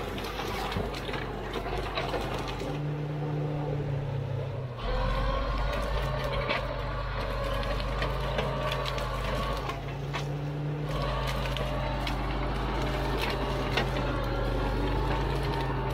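Caterpillar D4 7U crawler dozer's diesel engine running under load while pushing through gorse. Its note shifts a few times, about three and five seconds in and again around ten to eleven seconds in, with frequent clanks and knocks over it.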